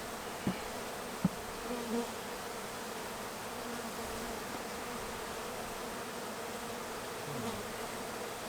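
A large honey bee colony buzzing steadily, its hive opened up. Two short knocks in the first second and a half stand out above the buzz.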